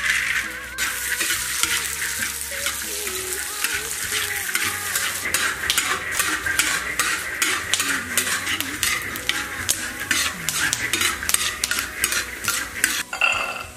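Raw peanuts stir-frying in oil in a large wok: a steady sizzle under a metal spatula's repeated scraping strokes against the wok, which come thick and fast from about five seconds in and stop shortly before the end.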